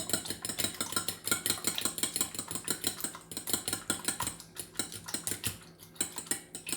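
A fork beating eggs in a bowl: quick, even clinks of metal on the bowl, about five a second, easing off for a moment after about four seconds.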